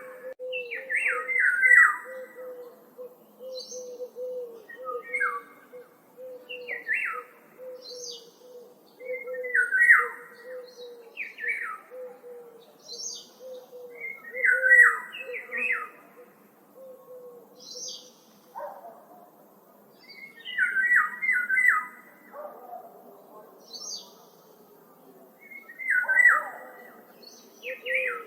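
Woodland songbirds calling, with short clusters of quick descending notes repeated every two to three seconds and fainter high notes in between. A faint, low wavering tone runs steadily underneath.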